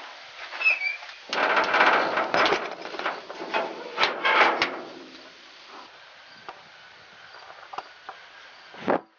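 Knocking and clattering on a metal livestock trailer as a cow and calf are loaded, a busy run of bangs for about four seconds, then only a few light taps.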